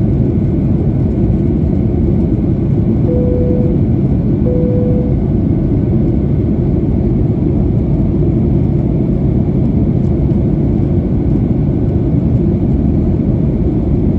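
Steady low cabin noise of a Boeing 737-900ER in flight, from its CFM56 engines and the airflow past the fuselage. About three seconds in come two short, level beeps, a second or so apart.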